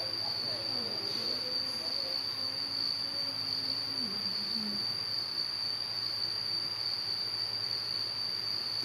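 A steady high-pitched whine holds one unchanging pitch throughout, with a faint voice murmuring in the background for the first few seconds.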